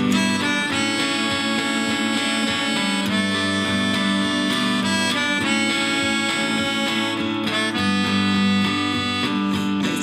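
Instrumental passage: a melodica plays a melody in long held notes over a Rickenbacker electric guitar accompaniment.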